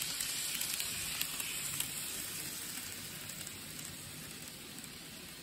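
N gauge model train running on the layout's track: a steady hissing rattle of small wheels on rails that slowly fades as it moves away, with a couple of faint clicks in the first two seconds.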